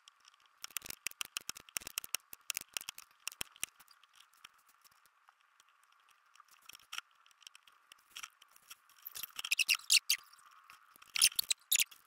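Desoldering work on a Dyson vacuum battery pack's circuit board with a soldering iron and a desoldering pump: irregular small scratchy ticks and clicks of metal and plastic. Louder clusters of plastic clatter come near the end as the pack is handled and turned. A faint steady high whine runs underneath.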